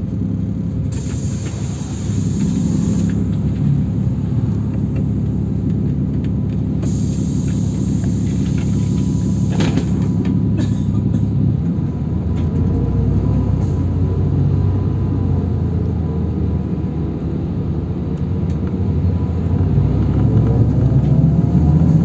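Cabin of a LiAZ 529265-03 city bus under way: a steady low engine and road rumble, with two short bursts of hiss in the first half. Near the end a rising whine comes in and the sound grows louder as the bus gathers speed.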